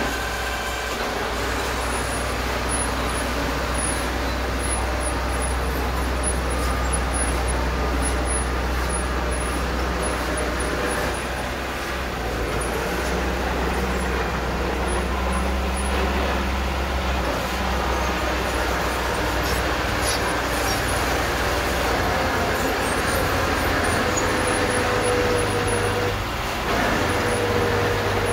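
Small crawler bulldozer's diesel engine running steadily as it pushes dirt fill, its note shifting a few times under the changing load. A faint whine rises near the end.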